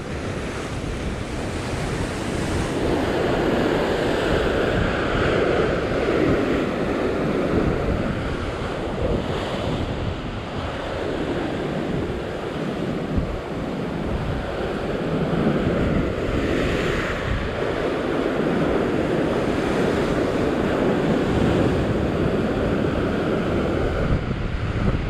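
Ocean surf washing and breaking against a coastal rock ledge. It swells and eases in surges every few seconds.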